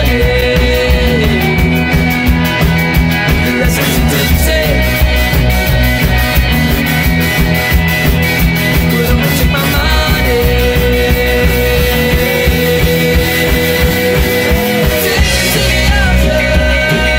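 Rock music soundtrack.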